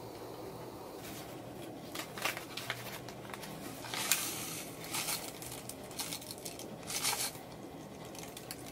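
Hands crinkling and crushing something over a stainless steel cup: a string of short rustling, crackly bursts starting about a second in, loudest about four seconds in and again near seven seconds.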